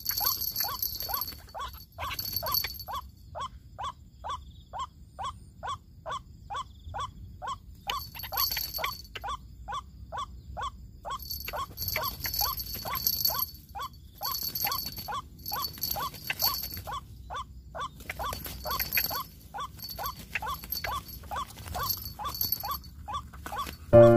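White-breasted waterhen (ruak-ruak) calling its repeated clipped 'kruak' note, about two to three a second without a break, with bursts of a high insect-like buzz coming and going every second or two.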